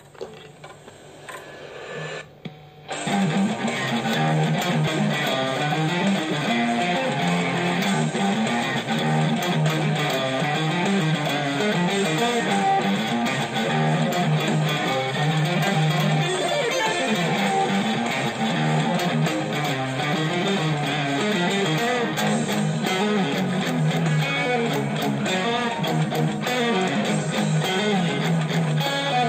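Electric guitar, a 1985–86 Fender Japan Stratocaster with sync tremolo, playing a rock intro in quick, repeating note patterns. It starts with a few quiet notes and gets much louder about three seconds in.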